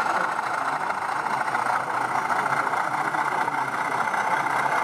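Sound-fitted model Class 25 diesel locomotive giving a steady diesel engine sound from its speaker as it moves slowly, over a constant hubbub of hall noise.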